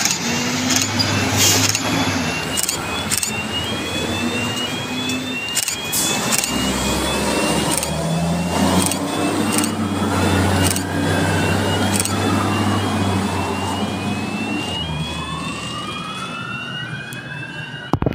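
Fire engines turning out: their diesel engines running as they pull away, with sirens sounding: a quick rising yelp repeated over and over, and a slower wail that rises and falls twice.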